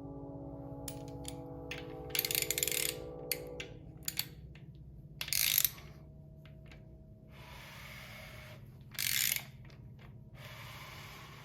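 Ratchet wrench clicking in three short runs, about two, five and nine seconds in, with scattered single clicks between, over a steady low hum. A low held tone fades out in the first few seconds.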